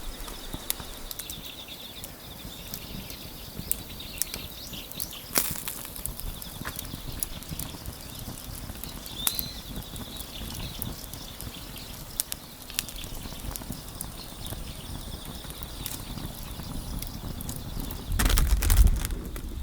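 Wood fire crackling, with scattered sharp pops over a steady background hiss. A louder low rumbling noise comes in near the end.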